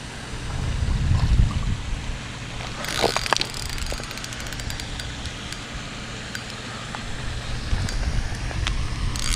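Wind rumbling on the microphone, with scattered light clicks from a spinning reel and rod being handled while a fish is played. About three seconds in there is a brief louder rush.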